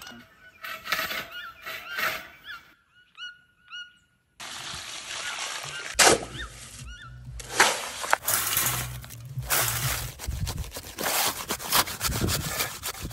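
Knocks of a digging bar striking dry, stony soil, with birds chirping repeatedly. Then wet concrete is scooped, dropped and packed into a hollow concrete-block column with a metal bar, giving hard knocks and gritty scraping.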